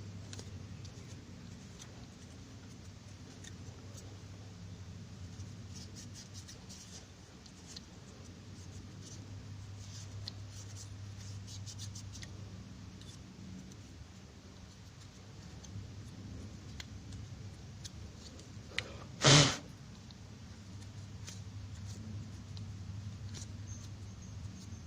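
Light scratching and rubbing as the cooling fan from a Polytron speaker is cleaned between its blades, over a steady low hum. One short, loud burst about two-thirds of the way through.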